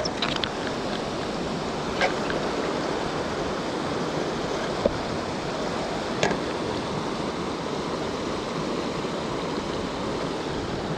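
Steady rush of flowing river water, with a few brief faint clicks about 2 and 6 seconds in.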